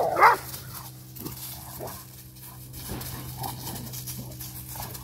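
Bullmastiff and Cane Corso play-fighting: one short, loud play vocalization right at the start, then quieter scuffling in dry leaves as they break apart and run.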